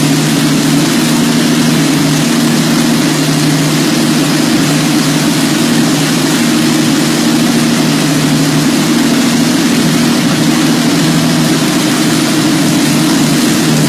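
V12 engine idling steadily at a constant speed, running smoothly.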